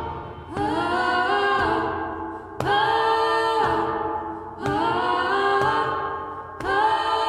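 A cappella vocal music: layered voices holding chords in phrases that begin about every two seconds, each starting strongly and then fading.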